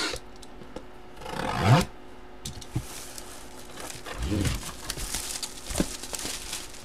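A cardboard box being handled and slid on a table: a scraping swish about a second and a half in, a softer one a little after four seconds, and a few light taps.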